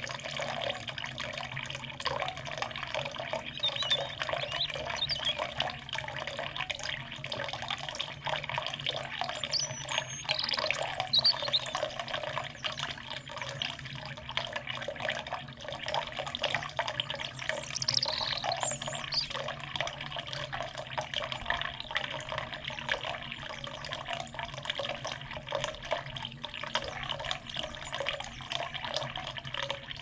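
Small fountain's stream of water splashing steadily into its pool, with a few short, faint bird calls about a third of the way in and again past halfway.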